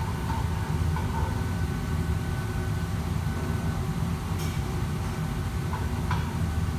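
Steady low roar of a commercial wok station's gas burner and extractor hood, with a faint steady whine. A few light metal clinks of a ladle against the wok come through, one about four seconds in and another about six seconds in.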